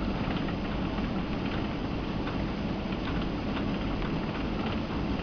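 Cabin noise inside a Boeing 767 rolling along the runway: a steady, low engine and rolling rumble with faint, irregular rattling ticks.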